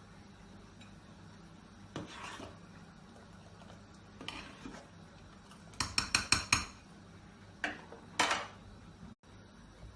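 Metal utensils clinking against pots and dishes: a few scattered knocks, then a quick run of about six clinks about six seconds in, and two more a little later.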